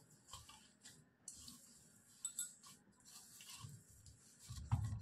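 Hands kneading and squeezing a mashed potato and spice filling in a steel kadhai: faint, irregular soft squishing and rustling, a little louder near the end.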